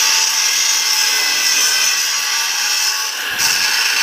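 Handheld angle grinder running against a metal frame, a loud steady high whine as the disc bites into the metal. It eases off briefly about three seconds in, then bites again.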